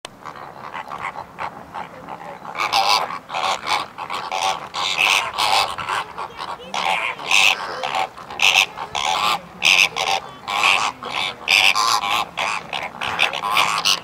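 A flock of greater flamingos calling: a dense, overlapping run of short honks that grows louder after about two and a half seconds.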